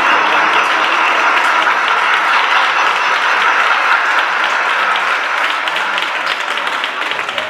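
Audience applauding, thinning out near the end into separate claps.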